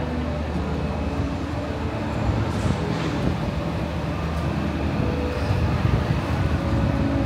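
Steady rumble of a metro train running in an underground station, with faint low tones that grow a little louder toward the end.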